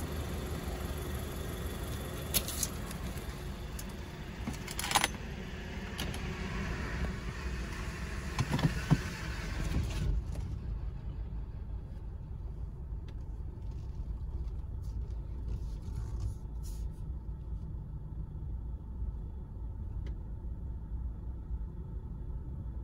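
Car engine idling, a steady low rumble, with a few sharp clicks and knocks in the first ten seconds. After about ten seconds the higher hiss drops away and only the low hum is left.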